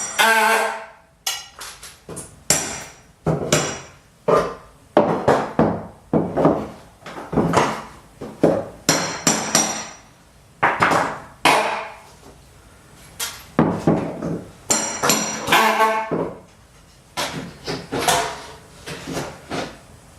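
Hammer driving nails: sharp blows in irregular runs with short pauses, some of them ringing with a metallic tone after the strike.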